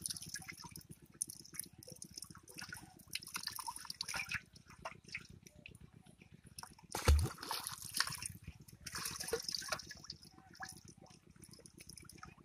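Water dripping and trickling from a freshly netted fish held over a pot of water, with small splashes and wet handling noises throughout. One loud thump about seven seconds in.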